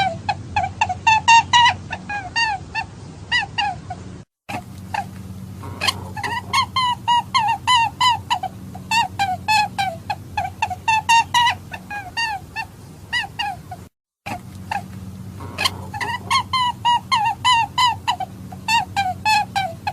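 Recorded rabbit hunting call: rapid short high cries, several a second, each rising and falling in pitch, over a low steady hum. The call cuts out briefly about 4 seconds in and again about 14 seconds in, then resumes.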